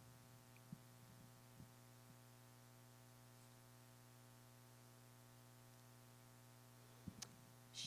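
Near silence: room tone with a steady low hum, broken by a few faint clicks.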